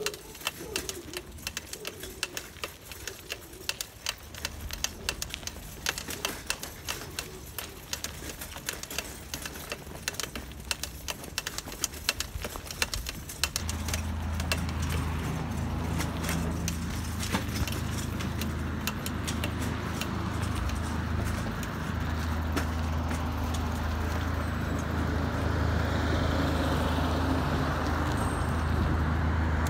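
Light clicking and rattling through the first half. About halfway through, a vehicle engine comes on with a steady low hum that slowly grows louder toward the end.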